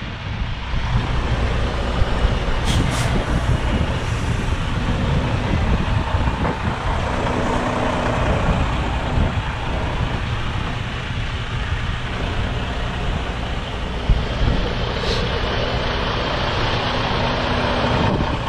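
Semi truck's diesel engine running steadily at idle, with no throttle, as the truck backs up in reverse. A couple of brief clicks sound over it.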